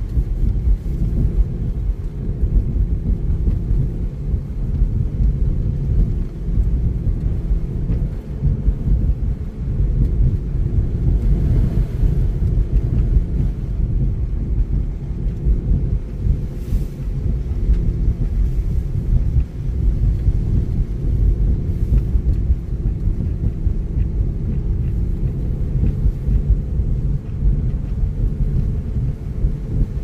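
Car driving along a wet mountain road: a steady low rumble of road and engine noise.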